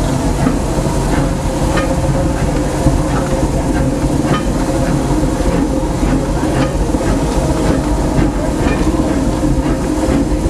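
Disneyland Railroad's 4-4-0 steam locomotive No. 1 "C.K. Holliday" running along the track, heard from inside its cab: a steady rumble and clatter with sharp clicks recurring about once a second.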